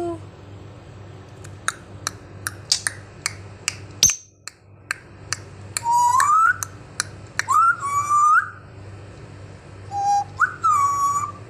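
African grey parrot clicking and whistling: a string of sharp clicks in the first half, then several short whistles that slide upward in pitch, the last one jumping up a step near the end.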